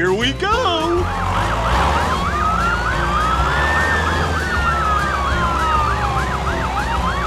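Emergency-vehicle siren in a fast yelp, about four rising-and-falling cycles a second, with a slower wail climbing and then falling beneath it, over a steady low hum.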